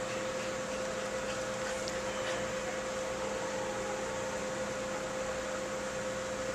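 Steady machine hum: a constant mid-pitched tone with a fainter lower tone over an even hiss.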